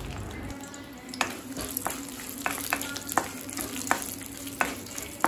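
Dry red chillies, garlic and urad dal sizzling in hot oil in a metal kadai. From about a second in, a wooden spatula stirs them, knocking and scraping against the pan about eight times at irregular intervals.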